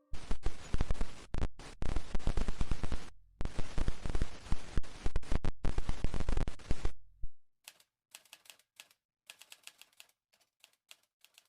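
Rapid typing: a dense run of loud mechanical key clicks with a few brief pauses for about seven seconds, then sparser, fainter clicks.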